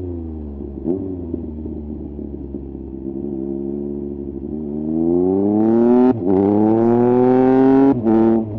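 2018 Triumph Speed Triple 1050 RS's inline-three engine through a Mivv exhaust with the dB killer removed: the revs fall with a short crack about a second in, then the engine is opened up and the pitch climbs hard, broken sharply twice, about six and eight seconds in, by quickshifter upshifts, before settling back to a steady lower note near the end.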